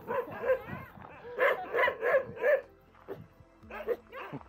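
Dogs barking and yipping in short bunches of quick barks, several loud ones close together, then a few fainter barks near the end.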